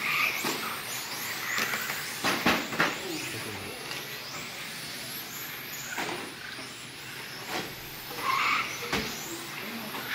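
Electric 1/10-scale RC touring cars racing, their motors whining up and down in pitch as they accelerate and brake, with several sharp knocks scattered through.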